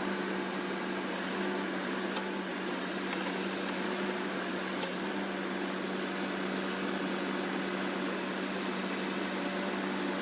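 Biomass harvester's engine running steadily, an even mechanical hum with no change in speed.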